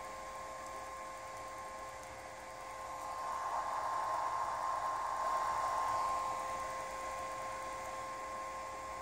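Omron MX2 inverter running: a steady electrical whine, with a rush of fan-like noise swelling up about three seconds in and dying away after about four seconds while the drive's output frequency climbs toward 20 Hz.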